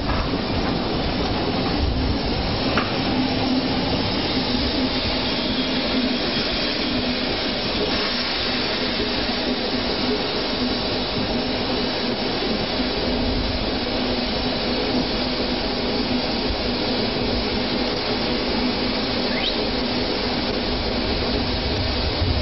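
Small steam locomotive moving slowly, with a steady hiss of steam and a low running rumble.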